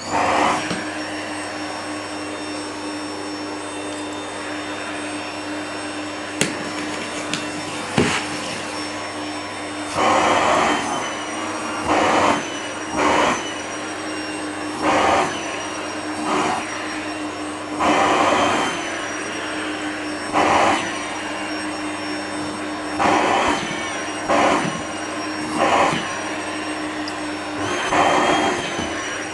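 Vacuum cleaner running steadily with a high motor whine. From about a third of the way in, every second or two, the rush of air gets louder and the whine dips as the nozzle is pressed onto the cat's fur and lifted off again.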